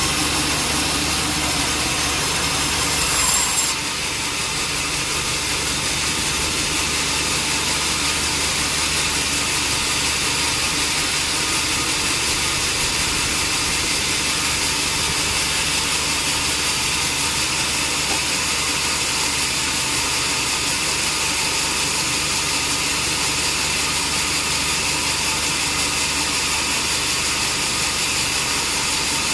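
Sawmill saw cutting through a durian log, with the machine running steadily under load. A high whine stops about three and a half seconds in, and the sawing noise continues evenly after that.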